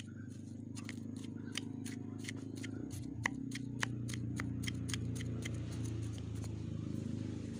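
Small hand tool poking and scraping potting soil inside a cement planter: irregular light clicks and scrapes, several a second, over a steady low hum.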